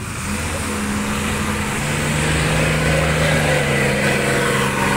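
Diesel engine of a dump truck running under load on wet, slippery field soil. It revs up and gets louder about two seconds in, then holds steady.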